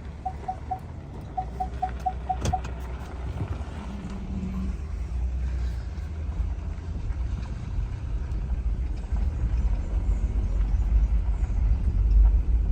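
Truck driving, a steady low road rumble that builds slightly. A run of short high pips sounds over the first couple of seconds, and a single sharp click comes about two and a half seconds in.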